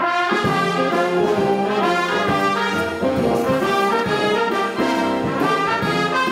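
Russian Navy military wind band playing a piece led by its brass section, with trumpets and trombones carrying the music in quick-moving notes.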